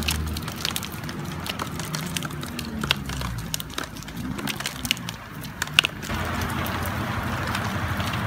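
Raindrops dripping off wet leaves onto dry leaf litter: scattered, irregular sharp taps over a low rumble. About six seconds in they give way to a steady patter of rain.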